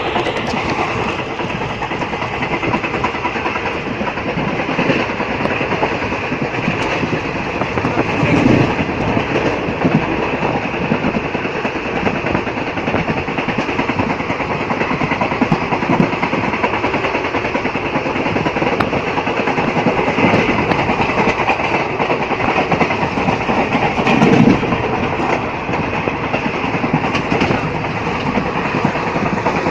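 Amaravati Express passenger train running at speed: a steady rumble and rattle of the coach, with the wheels now and then knocking over rail joints.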